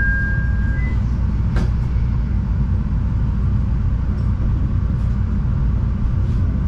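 CTA Yellow Line rapid transit train running, heard from inside the car: a steady low rumble of wheels on rail, with one sharp clack about a second and a half in. A two-tone electronic chime finishes in the first second.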